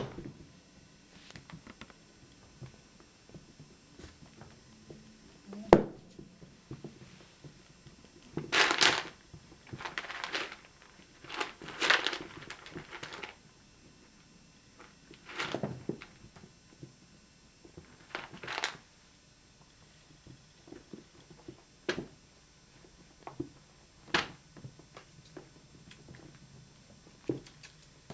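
Rabbits scuffling and scrabbling about on a blanket-lined cage floor: irregular bursts of rustling, a few of them lasting a second or so, with a sharp knock about six seconds in and a couple of short clicks later on.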